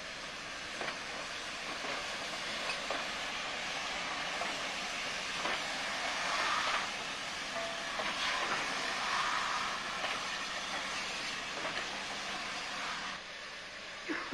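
Steam locomotives hissing as they vent steam, with scattered short knocks and clanks. The hiss swells louder twice in the middle, then drops away near the end.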